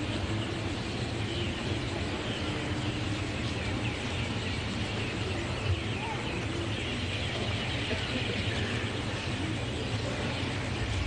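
Steady outdoor ambient noise with a constant low hum, and many faint high bird chirps through the middle.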